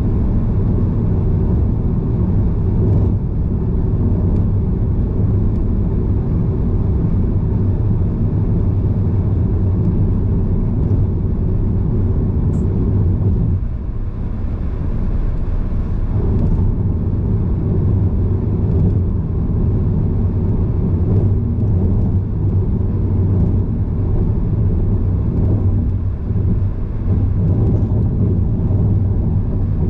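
Steady low rumble of a car driving on the highway: engine and road noise.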